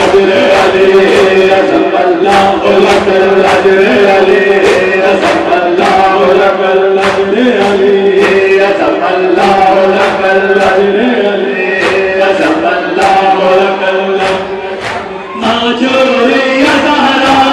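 Men chanting a Shia noha lament in unison through microphones and a PA, kept in time by a steady beat of chest-beating (matam). The singing dips briefly about fifteen seconds in before the next line starts.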